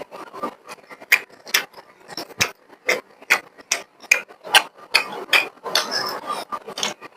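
Close-miked eating sounds: a person chewing a mouthful of beef and rice, with an irregular run of wet smacks and clicks about two or three times a second.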